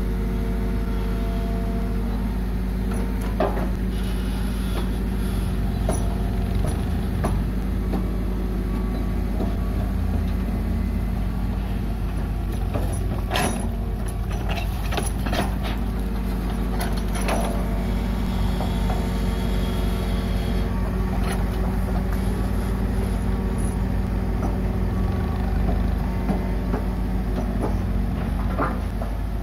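Diesel engines of an excavator and a six-wheel tipper lorry running steadily, with scattered sharp knocks and clanks from the excavator's bucket and arm, most of them around the middle.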